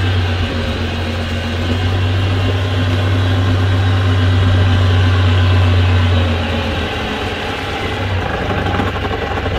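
Engine of a tracked rice-hauling tractor loaded with sacks of rice, running as the machine drives along. A steady low hum grows louder toward the middle, then turns rougher and pulsing about two-thirds of the way in.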